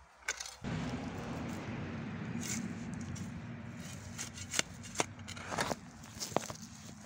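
Rustling and handling noise, then a metal spade blade scraping and knocking into stony garden soil several times in the second half.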